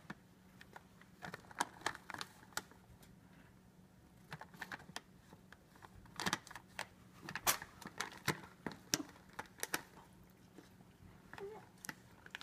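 A calico cat eating crunchy treats straight from a foil pouch held out to it: irregular crunching and crinkling clicks, in bunches, with short pauses between.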